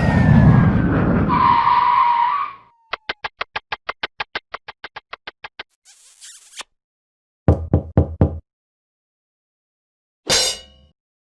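A string of short stock sound effects: a loud noisy blast with a falling whistle and a steady beep, then a fast even run of clicks, about eight a second, a brief faint hiss, four quick loud knocks, and a single sharp hit that rings briefly.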